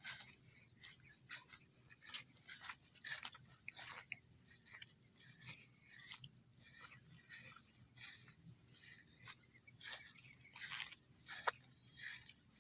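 A steady, high-pitched insect chorus, with many scattered short clicks and rustles on top.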